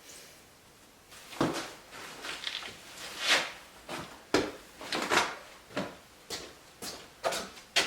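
A run of short, sharp scraping knocks, roughly two a second and uneven, starting about a second in.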